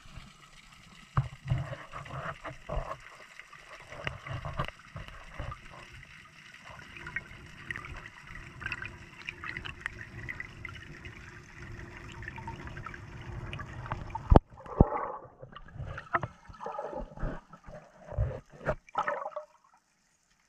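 Underwater water noise: gurgling and bubbling around a camera held by an ascending freediver, with scattered sharp knocks. In the last few seconds, choppy splashing as the camera breaks the surface.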